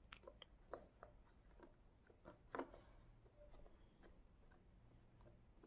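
Near silence with faint, scattered paper-handling sounds: soft rustles and small taps as a hand presses a glued paper wing onto a cardboard tube, the clearest tap about halfway through.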